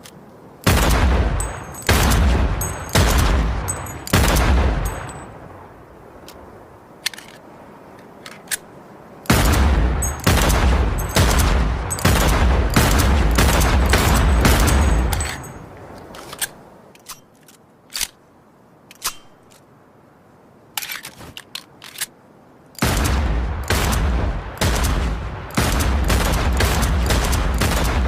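Gunfire sound effect in rapid automatic bursts: four short bursts, then a long sustained burst, a spell of scattered single shots, and another long burst near the end.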